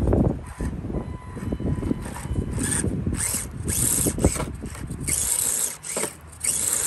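Small electric RC crawler's motor and drivetrain whirring in short bursts as it climbs rock steps, over the low rumble of wind on the microphone.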